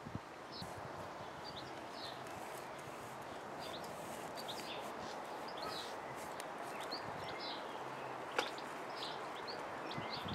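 Small birds chirping now and then over a steady outdoor background noise, with one sharp click about eight seconds in.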